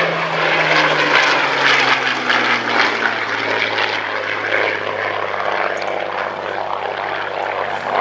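Hawker Hurricane IIC's Rolls-Royce Merlin V12 engine and propeller running in flight during a display pass, the engine note falling slowly in pitch.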